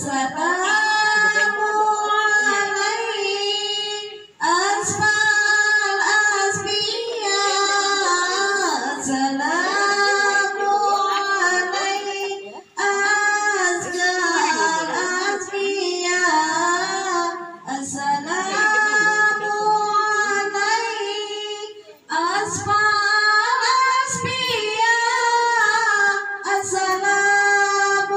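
A woman singing an Islamic devotional chant into a microphone, in long phrases of held notes with short breaks between them.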